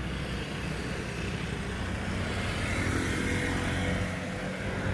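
Road traffic: motor vehicles running past with a steady low engine drone. About three seconds in, a passing vehicle adds a steady engine whine over it.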